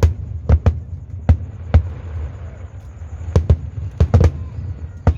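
Aerial fireworks shells bursting in a test firing: about ten sharp booms at uneven intervals, some in quick pairs, over a low rumble.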